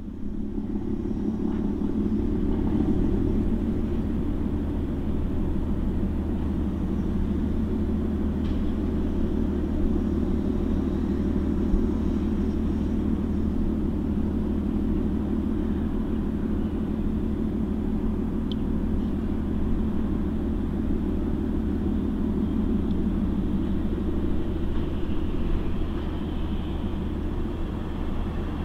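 Steady low rumble of the cargo ship M/S Westborg's engine as she manoeuvres in to berth. It swells up over the first couple of seconds, then holds even.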